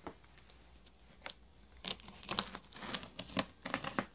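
Plastic stretch wrap on a cardboard box crinkling and tearing as it is pulled at by hand, in a run of sharp crackles through the second half.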